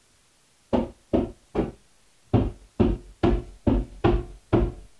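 Nine knocks: three, a short pause, then six more, evenly spaced about half a second apart, each with a short hollow ring.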